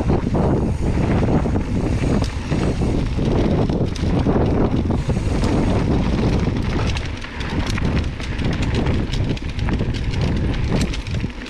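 Wind buffeting the microphone of a camera on a mountain biker riding a dirt trail, with the tyres rolling over packed dirt and small rocks and the bike rattling over bumps in frequent clicks and knocks.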